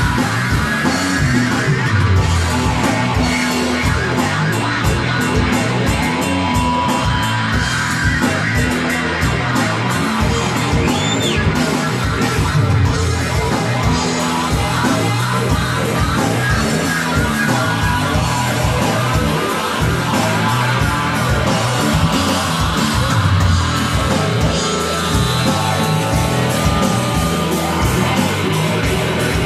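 Live rock band playing loud: distorted electric guitar over bass and a busy drum kit.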